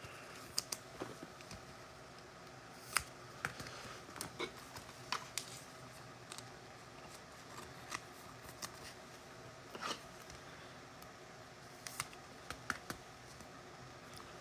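Faint, irregular light clicks and taps of trading cards being handled and sorted.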